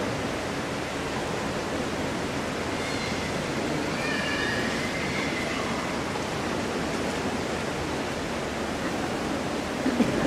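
Steady, even hiss of background noise, with a faint, brief high tone about three to five seconds in.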